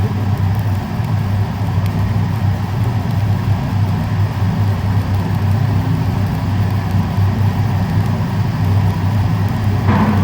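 Welding machine during stainless steel cladding, running with a steady low hum that does not change.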